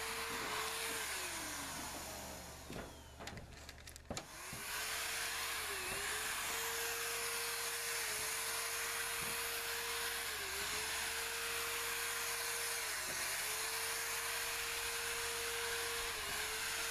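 Wagner electric paint sprayer running, spraying Plasti Dip: a steady hiss of air and spray with a motor whine whose pitch dips briefly every two to three seconds. Between about two and four seconds in it drops away with a few clicks, then comes back steady.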